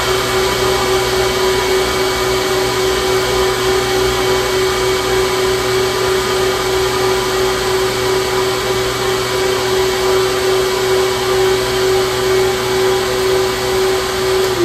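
Hurricane Black Box vacuum unit's primary pump running on its first start-up, a steady whine over rushing air as it pulls air through the open valves into the vacuum table.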